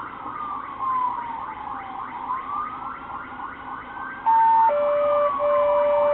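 Police siren on a slow rising-and-falling wail. About four seconds in, a loud steady electronic tone starts, briefly higher and then lower, broken by short gaps about once a second.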